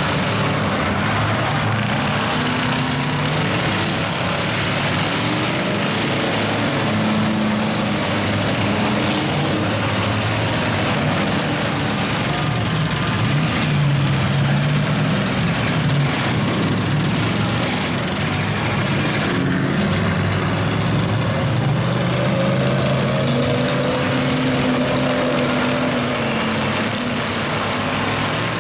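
Engines of several old pickup trucks in a demolition derby running and revving, their pitches rising and falling and overlapping over a constant noisy background.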